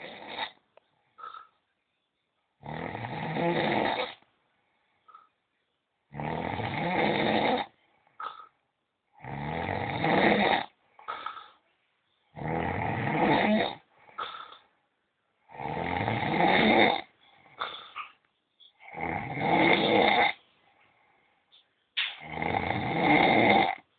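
A man snoring loudly in his sleep: seven long snores, each about a second and a half, coming roughly every three seconds, with short quieter breaths in between.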